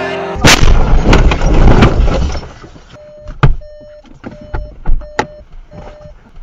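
A car crashing off the road into roadside bushes: a loud bang about half a second in, then crunching, scraping and thuds for about two seconds as it ploughs through the brush. After that the car's warning chime beeps steadily about once every three-quarters of a second, with a couple of sharp knocks.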